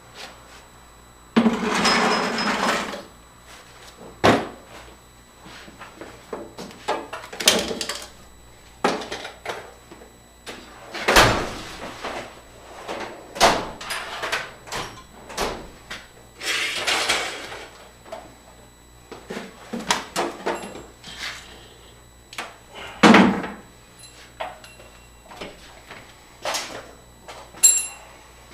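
Irregular knocks, clunks and scrapes of objects being handled and moved about, with a longer scraping or sliding sound about two seconds in and again around seventeen seconds.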